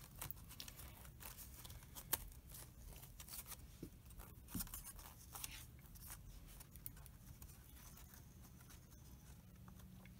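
Faint rustling and scattered light clicks of cross stitch cloth and a wooden embroidery hoop being handled and straightened, over a low steady room hum.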